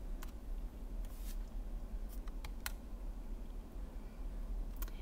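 A handful of sharp, faint clicks over a low steady hum: laptop keys or mouse buttons being pressed as the slides are advanced.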